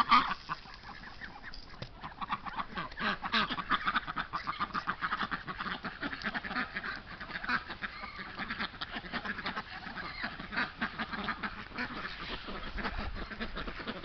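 A flock of domestic ducks quacking in a rapid, continuous chorus. A sharp knock sounds right at the start.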